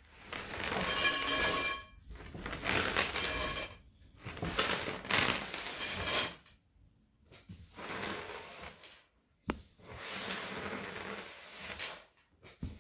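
Handfuls of gummy bears being scooped off a tabletop and dropped into a glass bowl: soft scraping and rattling in about five bursts, each a second or two long. There is one sharp click about nine and a half seconds in.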